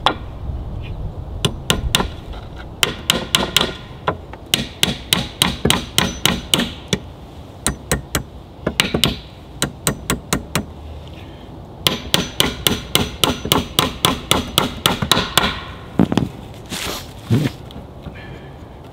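Hammer driving nails into a pallet-wood furniture frame, in quick runs of blows at about five a second with short pauses between the runs.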